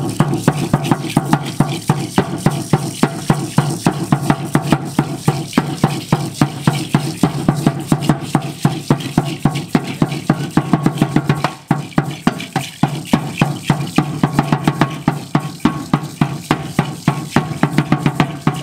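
Aztec huehuetl, a tall wooden drum, beaten with two sticks in a steady, fast beat for the danza, with a short break about twelve seconds in.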